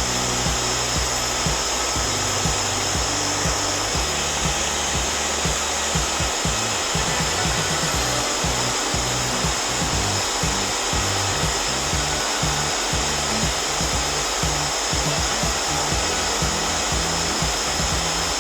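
A blower's steady rushing hiss, like a hot-air station or fan on a repair bench, under background music with a slow-moving bass line.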